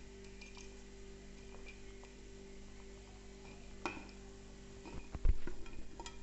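Faint clinks, then a run of soft knocks as fried chicken pieces are dropped onto fried rice in a non-stick pan, over a steady low hum.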